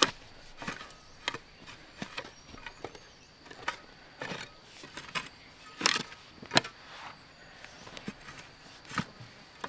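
Irregular sharp taps and knocks, roughly one or two a second, over a faint steady high-pitched hum.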